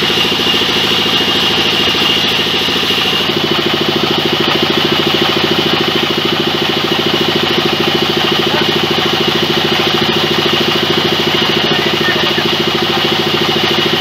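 Large belt-driven band saw sawmill running as a log is fed through it lengthwise: a steady, fast-pulsing mechanical drone from the drive, with a constant high whine over it. The sound shifts a little about three seconds in.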